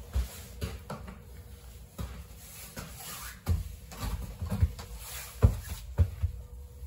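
Irregular knocks and thumps of footsteps and a door being handled in a small compartment of a passenger railway coach, about eight of them, the loudest a little past halfway.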